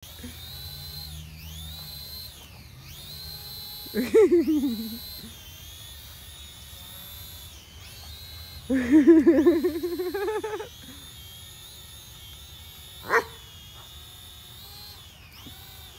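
A German Shepherd–Great Pyrenees mix dog barking at a drone. There is a bark about four seconds in, a longer wavering bout of barking around nine to ten seconds, and a single short bark near thirteen seconds. Underneath runs the steady high whine of the drone's propellers, dipping and rising in pitch.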